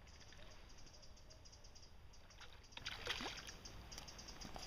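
A hooked Atlantic salmon thrashing and splashing faintly at the river surface, the splashes coming about two and a half to three and a half seconds in, with a faint, fast, even ticking behind them.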